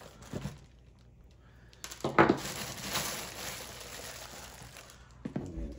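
Clear plastic bag crinkling and rustling as it is pulled off an RC car, starting with a sharp crackle about two seconds in and going on for about three seconds before tailing off.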